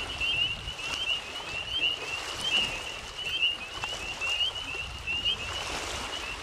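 Night chorus of many small calling creatures: short high chirps repeating rapidly and without a break, over a low background rumble.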